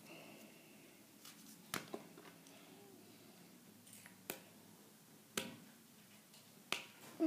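Staples being pried out of a stapled paper booklet by hand: a few sharp, scattered clicks over faint paper handling.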